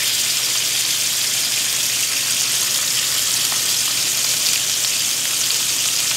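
Bacon-wrapped filets mignons sizzling steadily as they sear in hot olive oil and butter in a cast iron skillet.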